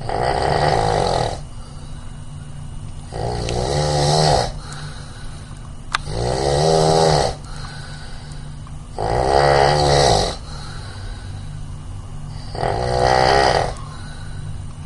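A person snoring: five snores at an even pace, about one every three seconds, each lasting a little over a second, over a steady low hum.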